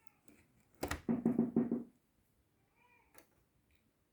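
A domestic cat meowing: one drawn-out meow of about a second, then a short rising-and-falling meow near the end. Light clicks are heard around them.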